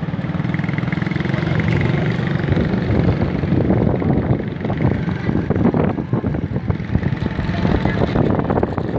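Small motorcycle engine running steadily while riding along, heard from on the moving bike.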